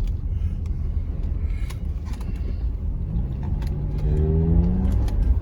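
Car driving through deep snow, heard from inside the cabin: a steady low road rumble with scattered clicks. From about three seconds in, the engine note rises as the car gathers speed.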